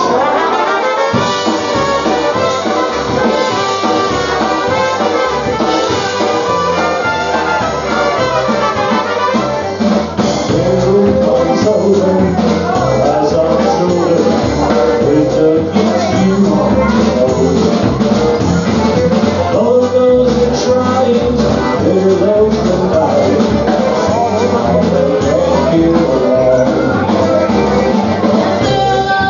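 Live polka band playing a polka, the brass leading over a steady, even beat in the bass. The music dips briefly about ten seconds in.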